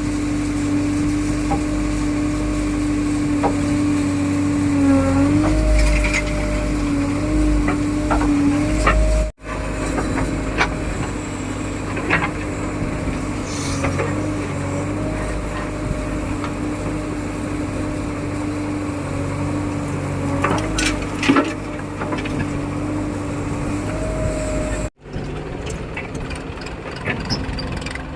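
JCB 3DX backhoe loader's diesel engine running steadily under work, with a steady whine over it that dips briefly now and then and a few short knocks.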